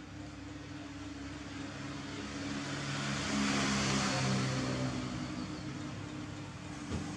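A motor vehicle passing by: a steady engine hum with a rushing noise that swells to its loudest about halfway through, then fades. A brief knock near the end.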